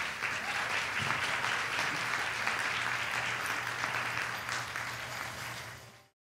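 Theatre audience applauding, many hands clapping steadily; the applause fades out and stops near the end.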